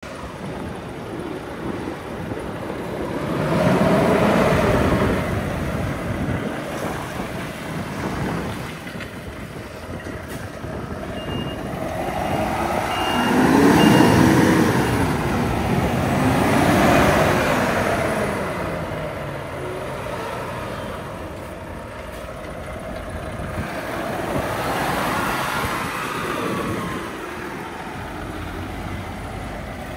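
Volvo FH460 tractor unit's six-cylinder diesel driving round, its engine note rising and falling and swelling as the truck comes close. It is loudest about four, fourteen and seventeen seconds in, with a short run of high beeps in the middle.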